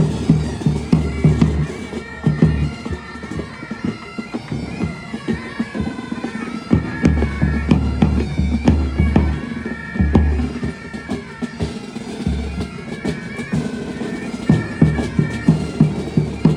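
Military pipe band playing: bagpipes sound a melody over steady drone notes, with drums striking a regular beat beneath.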